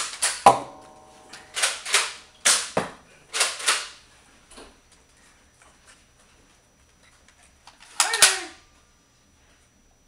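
Nerf dart blasters firing: a quick series of sharp pops and clacks in the first four seconds, one of them followed by a short ringing, then one more shot about eight seconds in.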